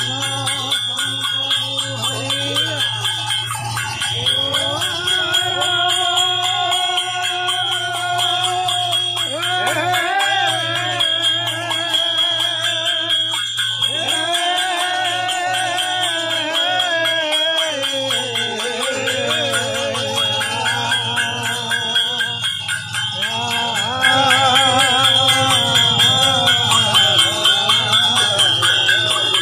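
Gayan-bayan devotional music: brass hand cymbals (taal) ring steadily while khol drums play and men sing a chant. It grows louder about 24 seconds in.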